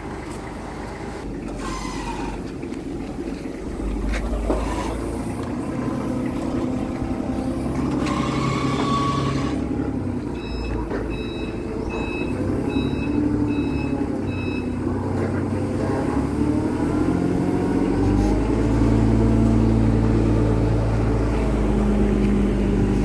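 Forklift engine running steadily, growing louder and higher in pitch in the last few seconds. About halfway through, a reversing beeper sounds a run of six or so short, evenly spaced beeps.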